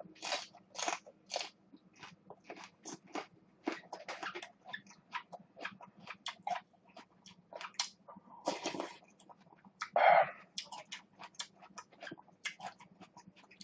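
Close-up crunching and chewing of raw cheongyang green chili pepper: a quick, uneven run of crisp, crunchy bites. A louder single sound breaks in about ten seconds in.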